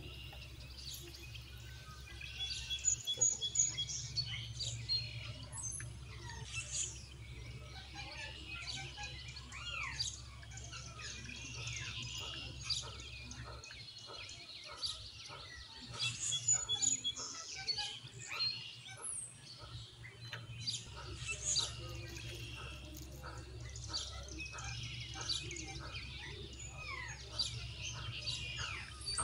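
Birds chirping and calling, with many short chirps and a few sweeping whistles, over a low background hum.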